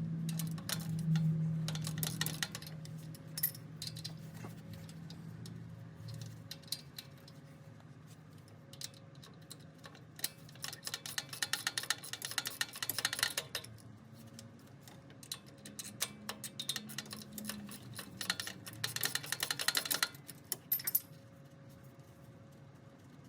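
Socket ratchet clicking in two long, fast runs while backing out the starter's mounting bolts, with scattered single clicks of tools on metal in between.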